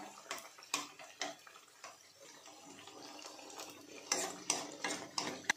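Steel ladle clinking against a kadai as malpua are turned in hot oil, with the oil sizzling steadily between the clinks. A few single clinks come in the first second or so, and a quick run of clinks comes near the end.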